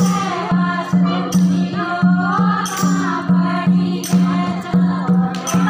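A group of women singing a devotional folk song, led by one voice, with the others clapping in rhythm about twice a second.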